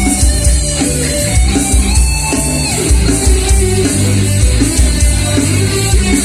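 Live band playing loud rock music: electric guitar over bass and a steady drum beat, with no one singing.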